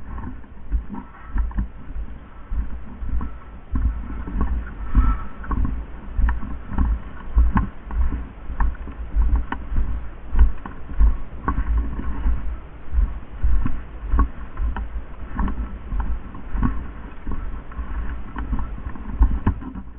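Footsteps and the rustle of clothing and gear jostling a body-worn camera as a player walks: heavy thumps about once a second, with scattered sharp ticks.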